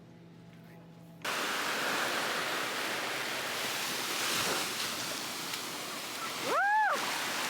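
Faint indoor hum, then about a second in an abrupt cut to the steady rush of ocean surf and wind at a beach. Near the end comes a short cry that rises and falls in pitch.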